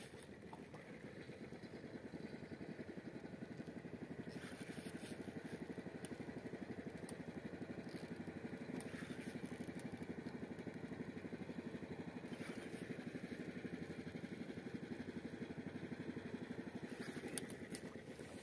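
A small fishing boat's engine running steadily at idle, with a few faint clicks.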